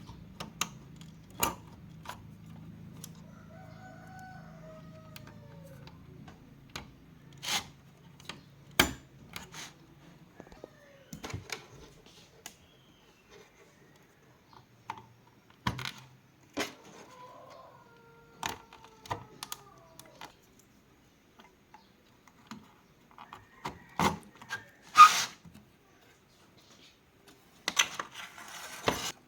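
Scattered sharp clicks and taps, with a chicken calling twice in the background, its calls falling in pitch. A low hum stops about a third of the way in.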